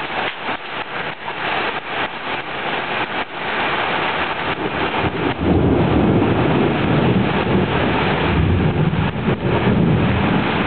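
Heavy rain pouring down in a thunderstorm, with a long low rumble of thunder that swells in about halfway through and keeps rolling.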